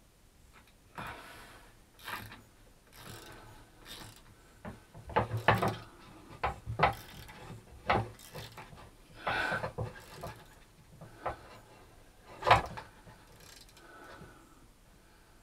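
Threaded inserts being wound into a plywood plate with a hex key, held square under a drill press chuck: an irregular run of clicks and short scrapes, with one sharp knock near the end.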